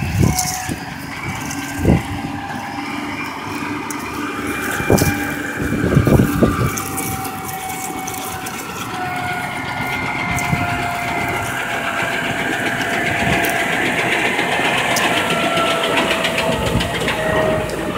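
A GMC General cotton module truck running while it loads a round cotton module. There is a steady machine whine over the engine, and the whine slowly falls in pitch in the second half. A few sharp knocks come about 2, 5 and 6 seconds in.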